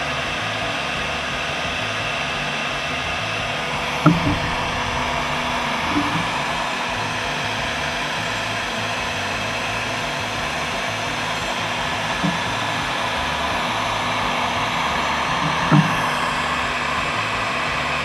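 Porter-Cable heat gun running on high, a steady blowing noise as it heats a solder sleeve on a shielded wire until the solder flows. A few light knocks break in, the loudest about four seconds in.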